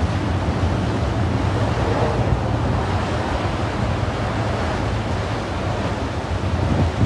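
Steady rushing noise with a low rumble of wind buffeting the microphone.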